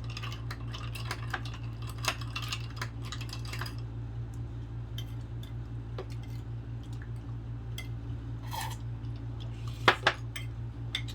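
Dishes and utensils clinking and scraping on plates during a meal: a run of light clicks in the first few seconds, then scattered ones, with two sharper knocks near the ten-second mark. A steady low hum runs underneath.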